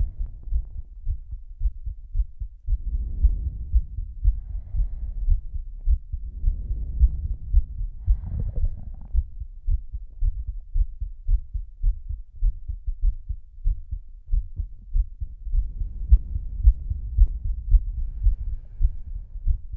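Heartbeat beating steadily as a string of low, muffled thuds, with heavy breaths in and out at intervals of a couple of seconds and a breathless gap of several seconds in the middle.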